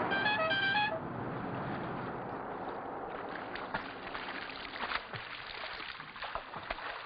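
Water sloshing and gurgling with scattered small knocks, as from a boat or paddling on moving water. A few short, high whistled notes sound in the first second.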